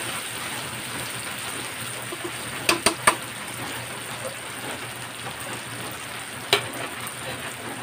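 Onion, garlic and tomato sizzling in oil in an aluminium wok, a steady hiss blended with heavy rain. A few sharp clicks come about three seconds in and once more near the end.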